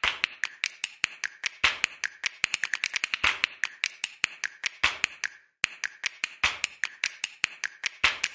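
A rapid, irregular run of sharp clicks or taps, several a second, that cuts out completely for about half a second near the five-second mark and then resumes.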